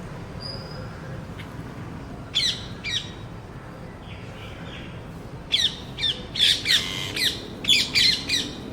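Birds calling: two short calls about two and a half seconds in, then a run of repeated calls in quick succession over the last three seconds, each made of quick falling notes. A steady low background hum lies under them.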